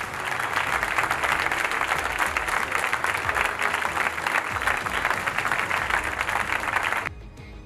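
Audience applauding: a dense, steady round of clapping that cuts off abruptly about seven seconds in.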